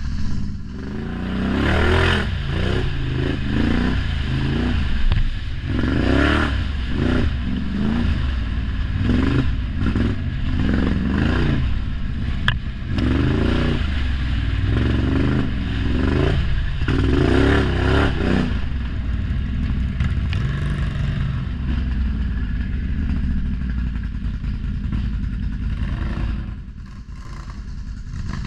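ATV engine revved hard in a dozen or so quick surges, one after another, then running more steadily for the last third, with some clatter and scraping.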